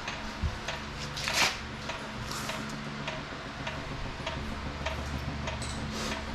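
A Nissan 350Z being lowered very slowly off a jack: scattered faint ticks and clicks, one or two a second, with one louder click about a second and a half in, over a steady low hum.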